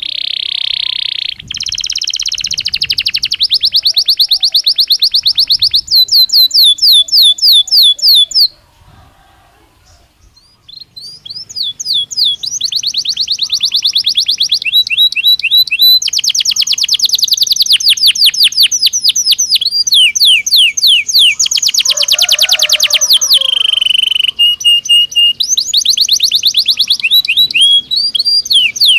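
Belgian canary singing: long, high-pitched trills and rolls of rapidly repeated notes. The song breaks off for about two seconds roughly a third of the way through, then resumes.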